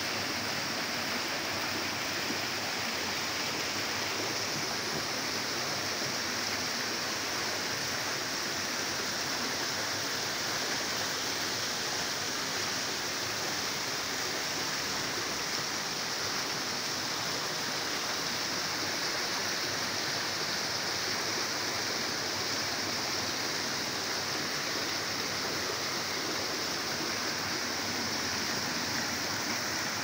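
Small waterfall and cascades of a forest stream pouring over boulders: a steady rush and splash of water with no breaks.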